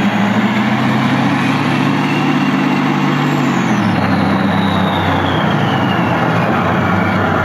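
Simulated T-90 tank engine sound from a Heng Long TK6.1 RC tank sound board, played through a home-cinema speaker. The engine runs at raised revs, then drops back to a lower note about three and a half seconds in, with a high whine falling slowly in pitch.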